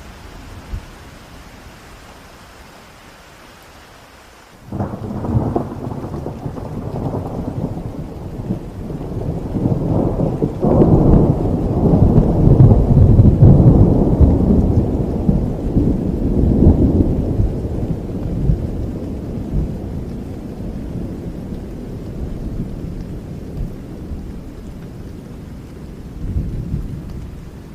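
Heavy rain with a thunderclap breaking in about four and a half seconds in; the low rumble builds to its loudest in the middle and slowly fades away.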